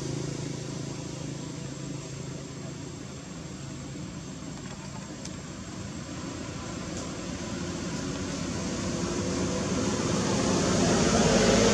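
Steady engine noise of motor traffic, easing off slightly and then growing louder over the last few seconds as a vehicle comes closer.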